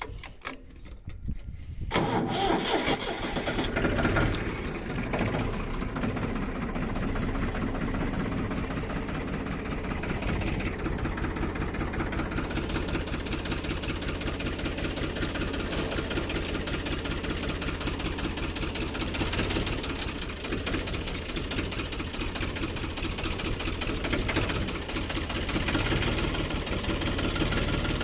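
Old diesel farm tractor engine, silent at first with a few clicks, catching about two seconds in and then running steadily.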